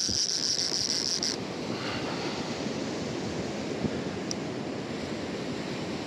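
Surf washing on the beach with wind on the microphone. For the first second or so a high, steady whine that cuts off: the conventional reel's drag paying out line to a hooked fish.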